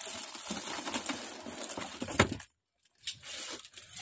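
Plastic bag wrapping crinkling and rustling as a bagged inkjet printer is handled and lifted out of its cardboard box, with one sharp knock about two seconds in. The sound drops out completely for a moment just after.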